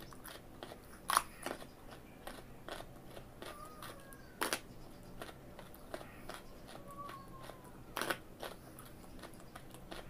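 Raw carrot being bitten and chewed: sharp crunches, the loudest about a second in, in the middle and near the end, with smaller crackling crunches of chewing between.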